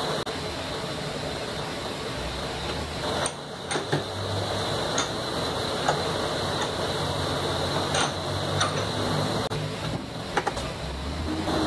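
Forge blower running with a steady hum, with a few sharp metallic clicks and taps scattered through it as hot iron is handled with tools.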